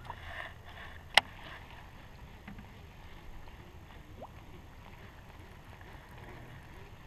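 Steady background of wind and water around a small boat, with one sharp click about a second in, the loudest sound.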